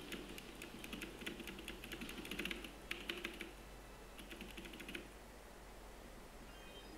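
Rapid clatter of computer keyboard keys being typed on, for about five seconds, then stopping.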